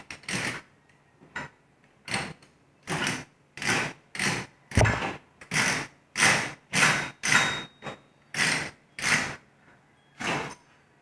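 Hand ratchet pipe threader being backed off a freshly cut thread on metal conduit: a short ratcheting stroke with each swing of the handle, about fifteen strokes, one every half second to a second.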